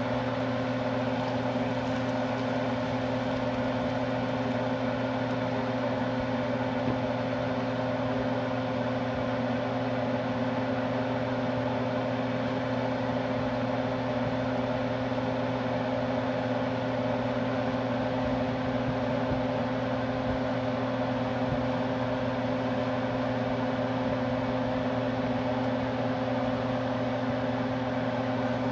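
A motor running with a steady hum and whir that does not change.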